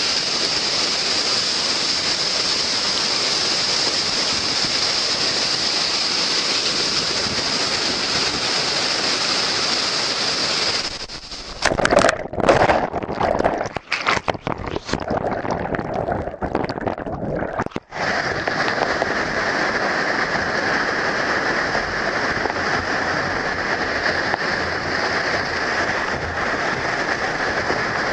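Waterfall rushing: a steady, loud roar of falling water. About a third of the way in it breaks up for several seconds into choppy, uneven gusts with brief dropouts, then settles back into the steady rush.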